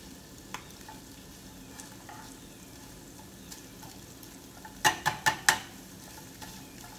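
Corned beef and sauerkraut frying in a pan with a low steady sizzle as they are stirred and turned with tongs. About five seconds in, the tongs give four quick sharp clicks.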